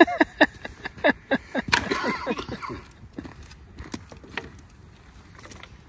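Several men laughing hard for about three seconds, the laughter dying away, followed by a few sharp crackles from the campfire.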